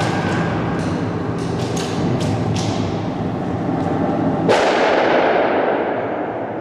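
Airsoft rifle shots cracking at irregular intervals and echoing through a large warehouse, with a louder bang about four and a half seconds in whose echo dies away over a couple of seconds.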